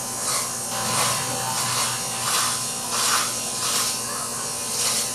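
Electric hair clipper buzzing steadily as it cuts hair, the cutting noise swelling with each stroke about every two-thirds of a second.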